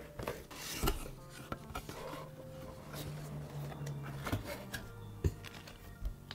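Background music with scattered clicks and light rubbing, like objects being handled.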